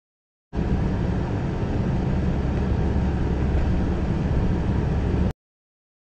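Steady low road and engine rumble of a car driving at highway speed, heard from inside the cabin through a dash cam's microphone. It starts suddenly about half a second in and cuts off abruptly near the end.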